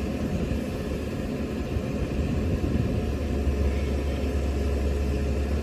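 Diesel engine of a JCB backhoe loader running with a steady low rumble.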